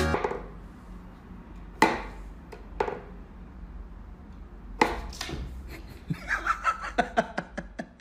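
Wooden whack-a-mole cat toy knocking as its pegs are pushed and a cat paws at the popping mice. There are a few sharp knocks about a second apart, then a quick run of light taps near the end.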